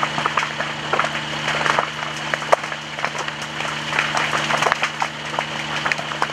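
Burning brush crackling, with many irregular sharp snaps and pops over a steady rushing hiss. A steady low hum runs underneath.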